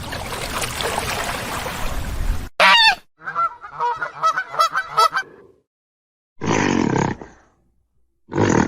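Geese honking: one loud call, then a quick run of short honks, after a couple of seconds of dense rushing noise. Two brief noisy bursts follow near the end, with silences between them.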